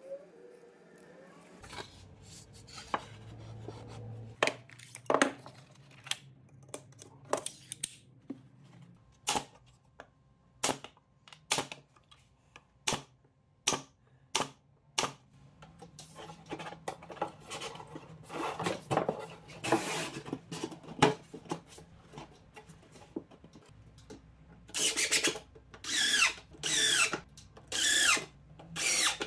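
Pneumatic brad nailer firing single sharp shots into the corners of a wooden drawer box, about one a second. Near the end, a cordless DeWalt drill driver runs in short bursts, driving screws into the drawer bottom.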